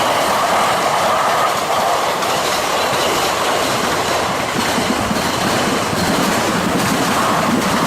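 Train running past on the rails: a loud, steady rush of wheels and cars, the sound lowering somewhat in the second half.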